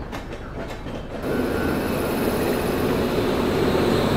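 WAP-7 electric locomotive standing at the platform with its cooling blowers running: a loud, steady rushing noise that comes in abruptly about a second in as the moving train draws alongside it.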